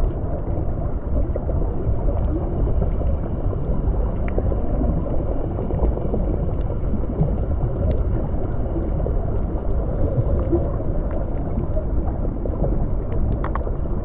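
Underwater ambience: a steady low rumbling wash of water, with faint scattered clicks.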